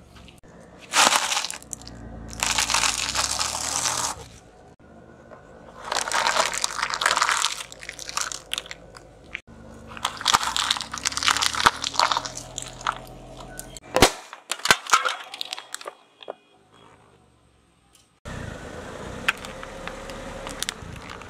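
A car tyre rolling over and crushing objects, one of them a stack of plastic snack cups, giving several separate loud crunching, crackling stretches in the first half. Around the middle come a few sharp cracks and snaps, and a steady hiss takes over near the end.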